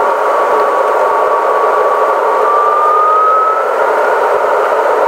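Boeing 777-200 cabin noise on descent: a steady rush of airflow and engine sound, with a thin whine that rises slightly in pitch partway through.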